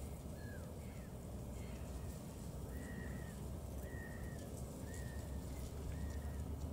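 A bird calling repeatedly: short, even, slightly arched notes at roughly one a second, over a steady low rumble.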